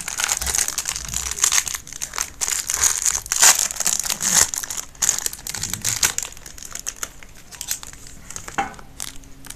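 Foil wrapper of a trading-card pack crinkling as it is handled and opened, busy at first and thinning out after about five seconds.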